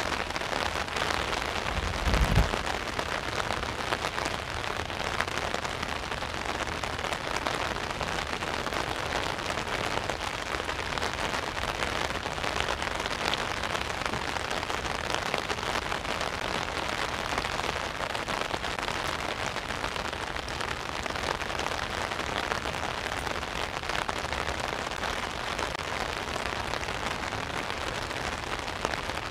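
Steady heavy rain pattering on an umbrella overhead, a dense even hiss of drops. About two seconds in there is a brief low thump.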